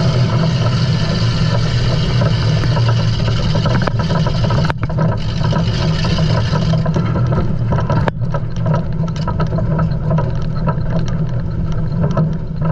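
Loud engine running steadily. The sound breaks off briefly twice, about five and eight seconds in.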